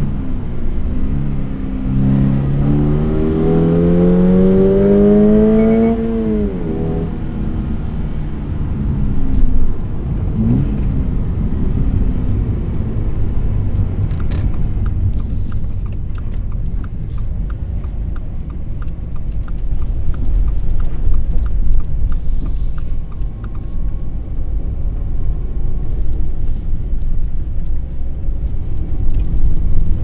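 Toyota GR86's 2.4-litre flat-four heard from inside the cabin, pulling up through the revs for a few seconds and then dropping away as the throttle is lifted, with a short rev blip a few seconds later. After that the car cruises with low road and tyre rumble, and a turn-signal ticks steadily about twice a second for several seconds in the middle.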